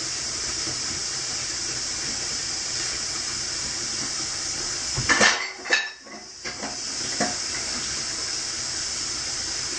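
A steady hiss, broken about five to six seconds in by a few knocks and a short clatter of the immersion-chiller hose and fittings being handled at the sink.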